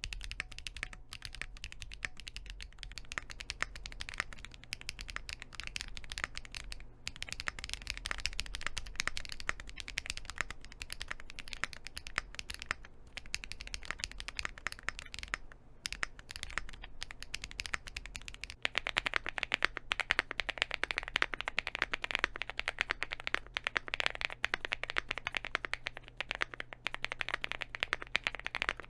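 Typing on a Rainy 75 mechanical keyboard: a fast, continuous run of key presses. About two-thirds of the way through, the keystrokes become louder and brighter, as the test moves to a different foam setup inside the board.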